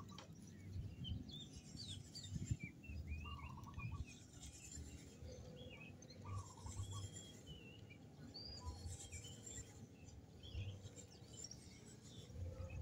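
Small birds chirping: many short, high calls scattered throughout, a few of them buzzy, over faint low knocks and rumble.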